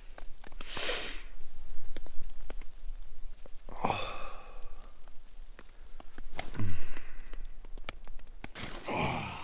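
A man waking up stiff-backed, sniffing once and then letting out three falling groans or sighs, with small clicks and rustling around him.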